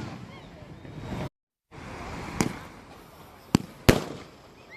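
Fireworks going off: three sharp bangs, about two and a half, three and a half and four seconds in, the last two close together. Faint short whistles are heard near the start, and the sound drops out completely for a moment at about one and a half seconds.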